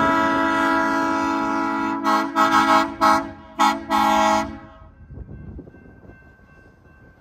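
A departing train's horn: a chord of several tones held steady, then broken into about six short toots that stop about four and a half seconds in. After it the moving train rumbles faintly.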